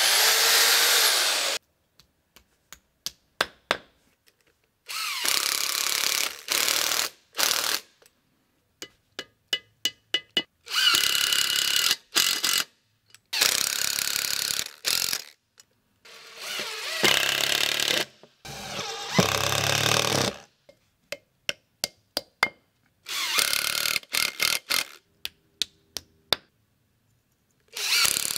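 A hammer drill with a masonry bit boring into concrete and brick in bursts of one to three seconds, interleaved with a power driver sinking screws into wall plugs. Between the bursts come series of sharp clicks and taps, some in quick runs of several a second.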